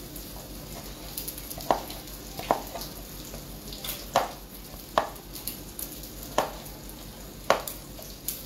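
Kitchen knife cutting a tomato on a plastic cutting board: a sharp knock each time the blade meets the board, about seven at uneven spacing, over a faint steady hiss.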